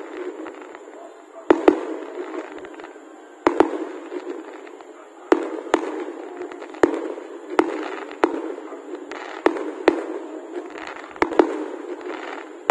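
Aerial fireworks going off: a string of sharp bangs, roughly one every second at an uneven pace, each trailing off in echo.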